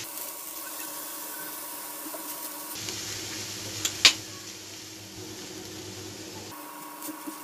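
Chicken mince cooking in a nonstick frying pan: faint sizzling and a silicone spatula stirring it, over a steady low hum. A single sharp tap about four seconds in.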